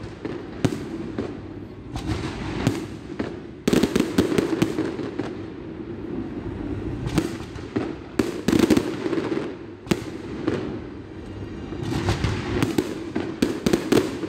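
Aerial firework shells bursting overhead in a display, with many sharp bangs in quick, irregular succession, thickest in the last few seconds.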